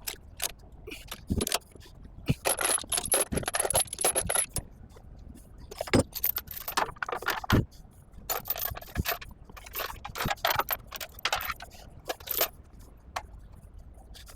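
Load-securement chains clinking, clanking and scraping against metal, in several runs of sharp, irregular metallic knocks, some with a short ringing tone.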